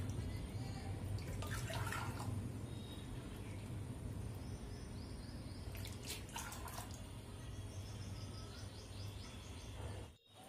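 Water poured from a plastic bottle into a plastic measuring cup and tipped into an aluminium pressure cooker of soaked chana dal, splashing and trickling in a few separate pours over a low steady hum.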